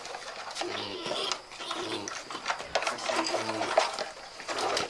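Piglets tied in net sacks grunting in short, low bursts, mixed with irregular clicks and rattles from a rubber strap being handled on a motorbike's cargo rack.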